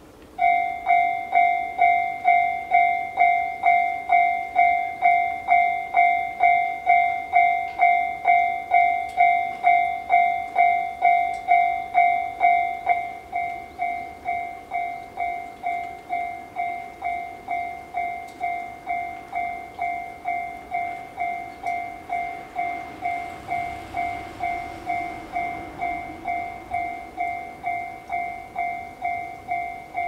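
Japanese level-crossing warning bell ringing, a bright electronic ding repeated about twice a second, starting suddenly at the outset: the crossing is warning of an approaching train. About thirteen seconds in it turns noticeably quieter but keeps ringing.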